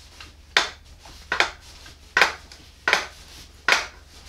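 Yamaha R1 front end being pumped up and down by hand on its forks, giving a sharp metallic clank with each stroke, about six in a row at a steady pace of roughly one every 0.7 seconds. This is done to settle the free fork leg square on the front axle before its pinch bolts are tightened.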